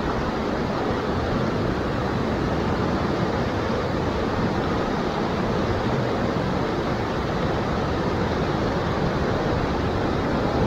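Fast, foaming stream water rushing over rocks in a steady, loud rush.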